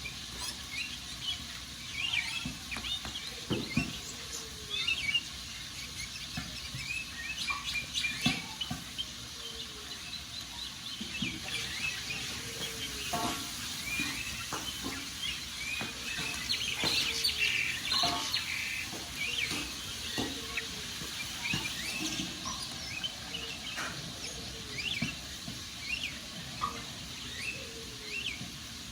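Wood fire crackling with scattered sharp pops, while many birds chirp and twitter throughout.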